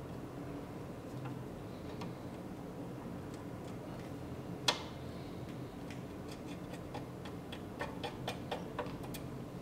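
Small metal clicks and ticks of a hand tool picking at the remains of a cotter pin in a tie rod end's castle nut, scattered, with one sharper click about halfway through and a quick run of clicks near the end. A low steady hum sits underneath.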